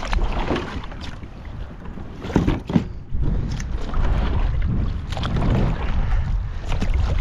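Kayak being paddled through shallow water, the paddle splashing in irregular strokes about once a second, with wind buffeting the microphone in a steady low rumble.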